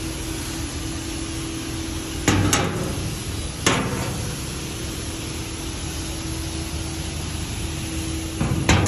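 Old car hood hinge being handled and flexed: sharp metal clanks, two in quick succession a little past two seconds in, one more about a second later, and the loudest near the end, over a steady background hum.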